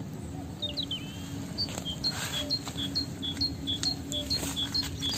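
Cats eating from bowls, with irregular small crunching clicks. A small bird sings a repeated two-note phrase, high then low, about twice a second, starting about two seconds in. A steady low hum sits underneath.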